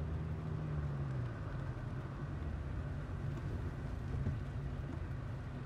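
Steady low engine and road drone of a Saab 900 heard from inside its cabin while it drives on a rain-wet road. The engine note shifts slightly about a second in.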